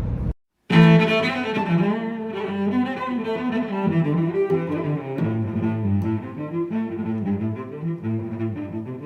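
Music played on bowed string instruments, with a low cello-like melody. It starts abruptly after a brief moment of silence just under a second in.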